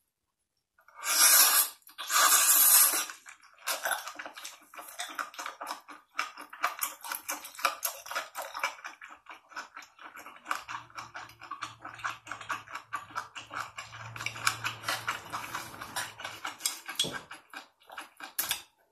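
Close-miked mukbang eating sounds: a big leaf wrap of rice and mudfish soup bitten with two loud crunches about a second and two seconds in, then a long run of rapid wet chewing and crackling as it is eaten.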